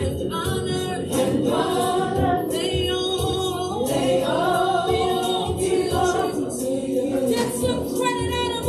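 Gospel choir singing with voices gliding between held notes.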